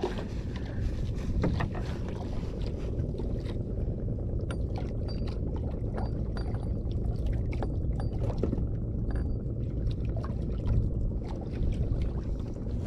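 Steady low rumble aboard a small outrigger fishing boat at sea, with scattered light clicks of fishing line and tackle being handled.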